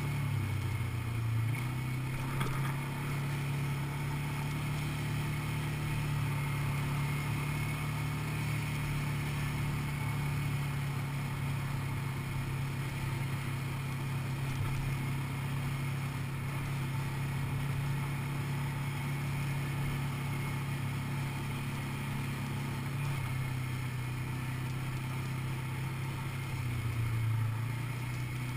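Quad bike (ATV) engine running steadily while riding along a dirt track. Its note dips briefly about a second in and again near the end, then picks back up.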